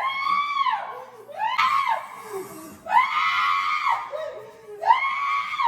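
A woman screaming in about four long, high-pitched wails, each rising and then falling away: staged cries of pain over a hand supposedly caught in a garbage disposal.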